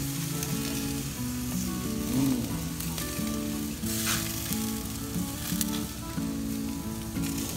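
Venison shish-kabobs and steaks sizzling on a hot gas grill's grate, a steady hiss with a few brief louder flares.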